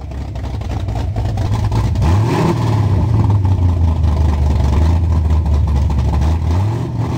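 A car engine running hard under acceleration. Its pitch steps up about two seconds in and climbs again near the end.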